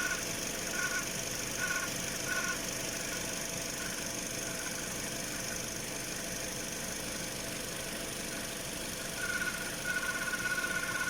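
Toyota Corolla Altis engine idling cold with the alternator running unloaded, its bearing making an early-stage noise: a steady high-pitched whine over the running engine. Four short high chirps come in the first few seconds, and a longer steady tone comes near the end.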